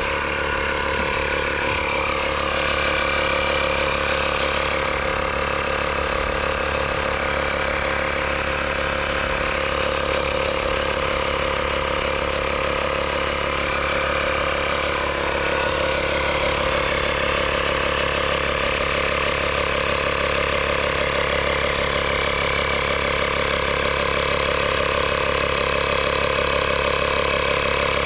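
Air compressor motor running steadily while it inflates a motorcycle tire, over-filling it so the bead seats on the rim.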